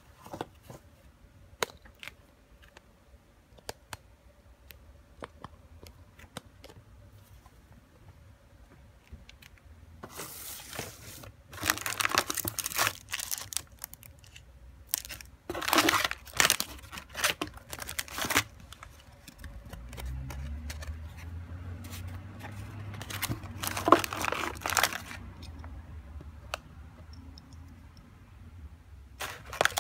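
Plastic wrapping crinkling and rustling by hand in several loud bursts, after a stretch of faint handling clicks. A low rumble sits underneath in the second half.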